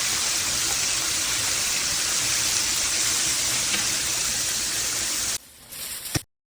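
Chicken frying in hot oil in a pan, a steady loud sizzle. It cuts off abruptly a little after five seconds, followed by a brief fainter sound and a sharp click.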